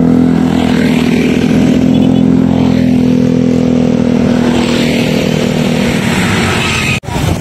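Motorcycle and scooter engines running as riders roll slowly past one after another, with a steady engine note that holds level and fades out about six seconds in. The sound cuts off abruptly near the end.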